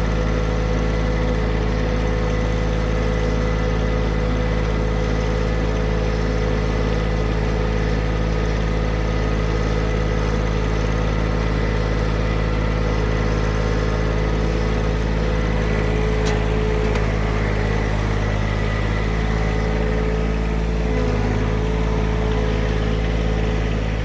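Vehicle engine running steadily at an even speed as it is driven across the garden soil.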